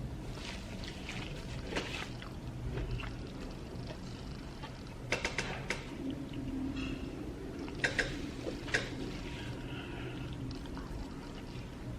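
Close-up eating sounds: wet mouth smacks, soft squelching and chewing of amala with slimy ewedu soup, with several sharp little clicks in two clusters partway through.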